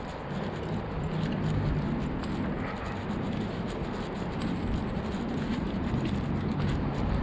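Steady low rumble of wind on a chest-mounted GoPro Hero 7 Black's microphone, mixed with distant road traffic, during a walk, with faint taps of footsteps on the path.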